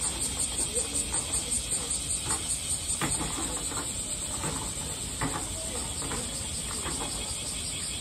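Cicadas in the surrounding trees: a steady, high hiss that pulses about four times a second for the first three seconds and then evens out. Faint distant voices and a few soft knocks lie under it.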